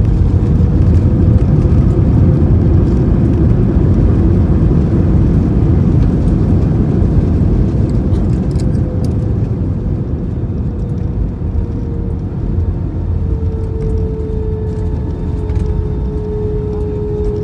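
Airbus A320 rolling out after touchdown, heard inside the cabin: a loud low rumble from the engines and wheels with a steady engine whine, easing gradually as the aircraft slows on the runway.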